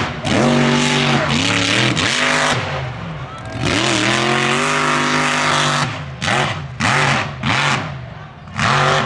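Mud truck engine revving in repeated swells, its pitch rising and falling, held high for a couple of seconds in the middle, then several quick short blips near the end.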